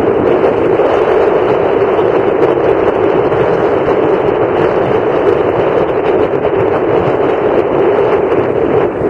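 Wind buffeting the camera's microphone: a loud, steady rushing noise.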